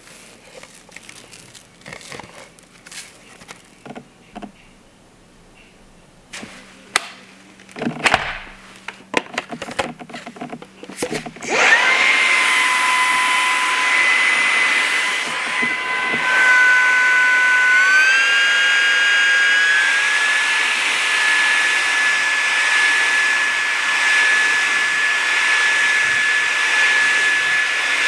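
Levoit LVAC-200 cordless stick vacuum: scattered clicks and knocks of handling, then about twelve seconds in the motor starts with a high whine and runs steadily, its pitch stepping up twice a little past the middle.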